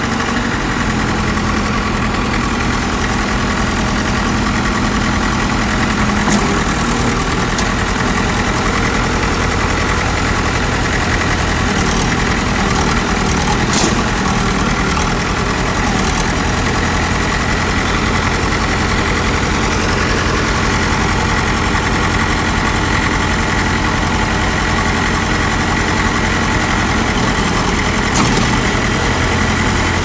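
Heavy diesel engine of earthmoving machinery running steadily at an even speed, with a few short clicks.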